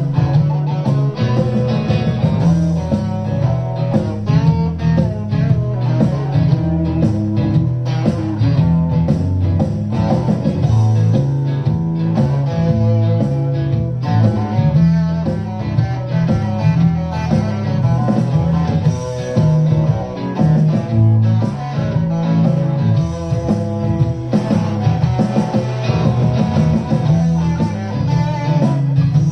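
Electric guitar played through an amplifier, improvising an unbroken stream of riffs and single-note lines, with strong low-string notes underneath.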